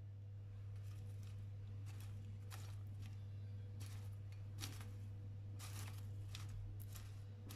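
Caramel-coated popcorn being stirred in a glass bowl with a silicone spatula: short, irregular rustles as the spatula sweeps through the popcorn, over a steady low hum.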